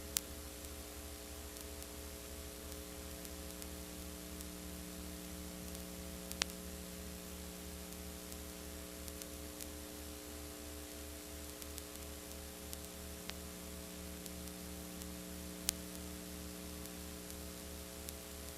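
Steady electrical mains hum with hiss and a few sharp clicks: the background noise of the recording, with no programme sound.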